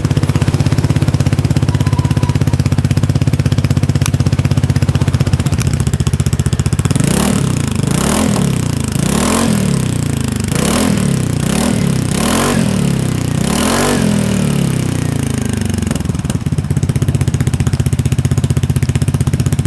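Vespa scooter engine running through a full-system Nuke aftermarket exhaust. It idles steadily, is blipped about six times in quick succession from about 7 seconds in, then settles back to idle.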